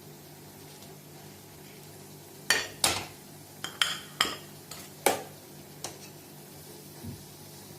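Cooking utensil knocking and clinking against a frying pan and a serving plate while the fried potato bread is lifted out: a run of about seven sharp knocks in the middle, over a low steady hum.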